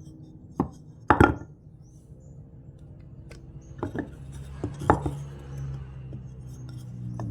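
Several sharp knocks from workshop handling of wood, the loudest cluster about a second in, over soft background music.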